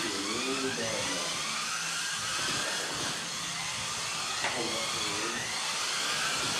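Several Kyosho Mini-Z rear-wheel-drive RC cars racing together, their small electric motors making a high whine. The overlapping pitches keep rising and falling as the cars accelerate and brake through the corners.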